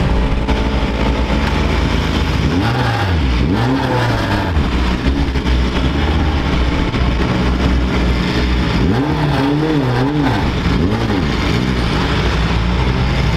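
Race car engine running, its pitch rising and falling in a few short swells, a pair early on and another pair near 9 to 11 seconds, over a steady low drone.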